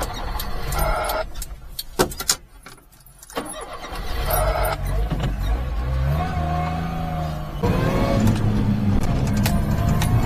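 Supercharged, carbureted Daihatsu Hijet mini-truck engine restarting after a stall. A quiet gap with a few clicks gives way to the engine catching about three and a half seconds in, and its revs climb as the truck pulls away. The stall comes from the carburettor running lean at part throttle.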